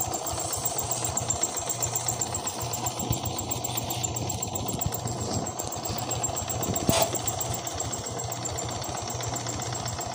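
Motorcycle engine idling steadily, with one sharp click about seven seconds in.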